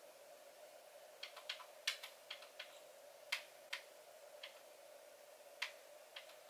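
About a dozen sharp, irregular taps and clicks on a handheld phone's screen, starting about a second in, over a faint steady hum.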